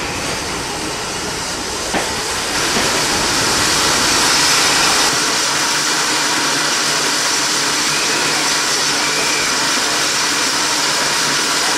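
Great Western Railway 64XX class 0-6-0 pannier tank locomotive standing with steam hissing steadily from around its cylinders. Before the hiss comes a low rumble of passenger coaches rolling slowly along the platform, with a single click about two seconds in.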